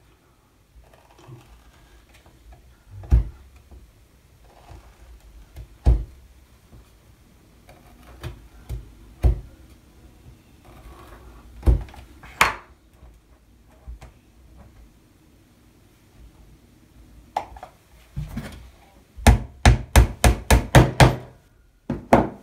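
Small pins being driven into the wooden deck and keel of a model ship kit: scattered single sharp knocks, then a quick run of about nine light taps near the end.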